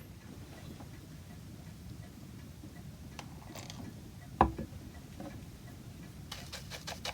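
Quiet bench work while staining a carved wooden clock door: faint taps and clicks, one sharp knock about four and a half seconds in, and a quick run of clicks near the end.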